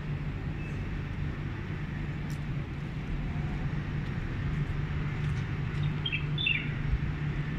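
Steady low drone of an idling engine, with a few quick bird chirps about six seconds in.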